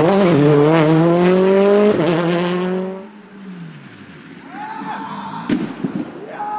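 Rally car engine at full throttle, rising in pitch, shifting up about two seconds in, then fading as the car drives away. A fainter engine follows, with one sharp crack a little after five seconds.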